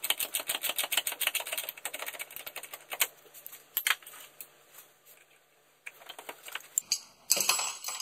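Ratchet wrench clicking rapidly, about ten clicks a second, as a socket turns a stuck brake-line fitting. The clicks then slow to scattered clicks and metal clinks, with a brief louder noise near the end.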